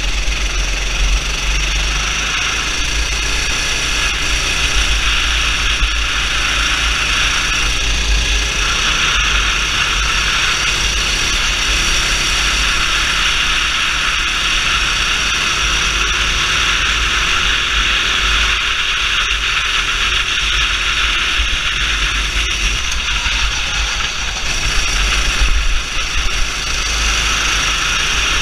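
Racing kart engine running hard at speed, heard from a camera on the kart itself, with wind rumbling over the microphone. The drone holds steady with small rises and falls in pitch as the kart goes through the corners.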